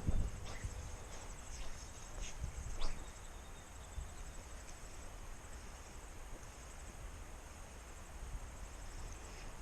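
Insects chirping steadily outdoors, a fast high-pitched pulsing, over a low outdoor rumble. A few short knocks sound in the first three seconds.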